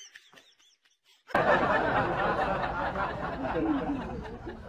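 A person laughing and chattering under a steady hiss. It starts suddenly about a second in, after a near-quiet opening.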